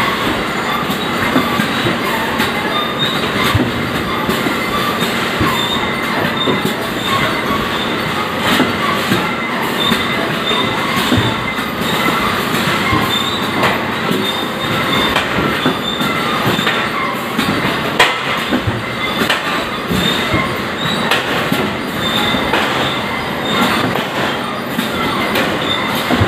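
Bag-loading belt and roller conveyors running: a steady mechanical clatter with many small knocks, and a faint high squeak that keeps recurring.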